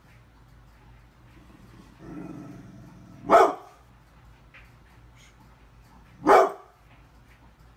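Brindle pit bull giving a low growl that runs straight into one deep bark, then a second deep bark about three seconds later.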